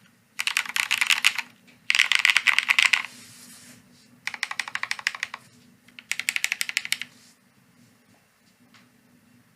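Typing on a Bina 103 mechanical keyboard with Cherry Hyperglide MX Black linear switches on a half aluminium plate, with Olivetti keycaps. It comes in four quick bursts of keystrokes, each about a second long, and stops about seven seconds in, leaving only a faint click or two.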